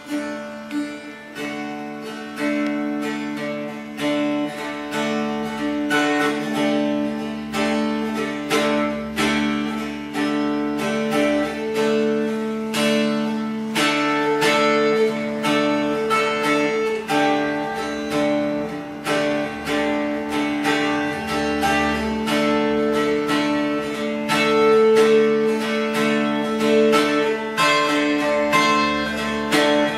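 Acoustic guitar playing: a steady stream of plucked notes and strummed chords over ringing low notes.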